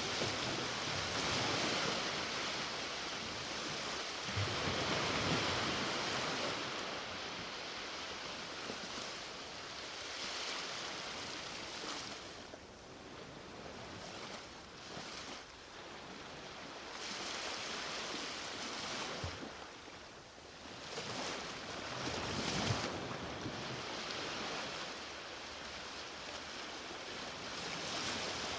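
Ocean waves washing onto a beach, a continuous surf rush that swells and ebbs every several seconds, with a quieter lull partway through.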